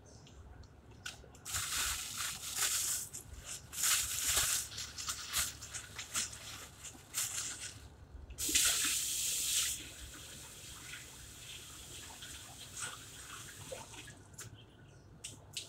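Kitchen tap running into a stainless steel sink in three main spells: about a second and a half in, about four seconds in, and about eight seconds in. Smaller splashes and drips come between and after them.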